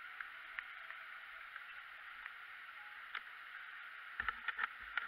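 Faint steady hiss with a few light ticks. Near the end comes a quick series of sharp knocks, a hand rapping on a car's side window.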